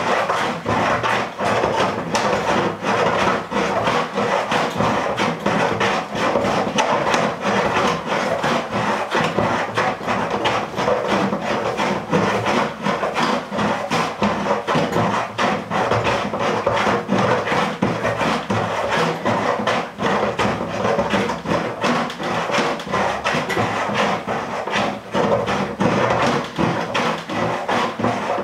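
Plunger pumped up and down through the hole in the lid of a bucket of soapy water and clothes, agitating the laundry. The handle rubs and knocks against the lid in a quick, steady rhythm.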